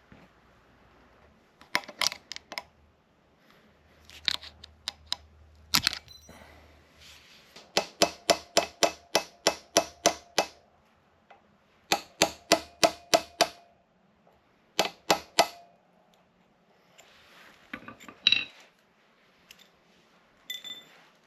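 Metal hand tools working on an ATV: several runs of sharp, evenly spaced metallic clicks, about four a second, with scattered single clinks and knocks between them.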